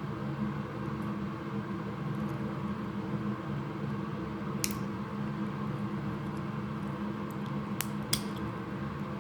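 A few sharp plastic clicks, one about halfway through and two close together near the end, as a vacuum cleaner's switch is pushed up out of its clip-held plastic housing. A steady hum runs underneath.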